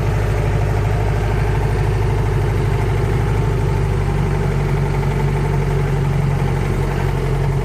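Modified four-wheel-drive jeep's engine running at a steady speed, a loud, even low drone with no revving.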